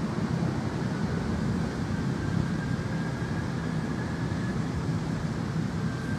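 Steady low outdoor background rumble, even throughout, with a faint thin high tone running through it.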